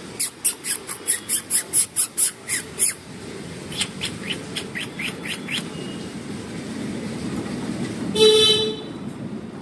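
A rapid run of about a dozen sharp, loud taps, roughly four a second, then a fainter run of similar taps, over a steady low street rumble. A vehicle horn honks once, briefly, near the end.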